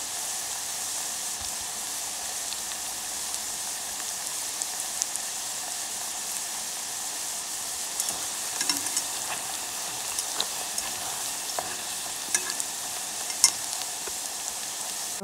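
Sweet potato fries deep-frying in hot oil in a pot: a steady sizzle with scattered crackles and pops that grow more frequent in the second half, one sharp pop standing out near the end. This is the second fry, which crisps the fries.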